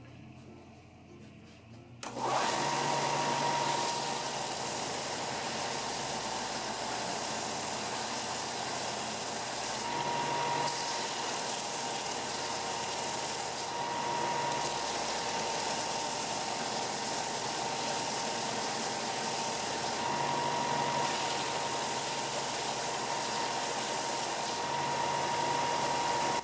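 Ryobi BD4601G 4" x 36" bench belt sander running, joining in suddenly about two seconds in with a steady high whine over the noise of the belt. The sound shifts slightly every few seconds as wood is sanded on it.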